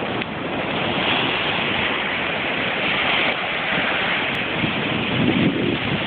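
Rough sea surf breaking and washing ashore: a steady loud rush. From about two-thirds of the way in, wind gusts buffet the microphone with low rumbles.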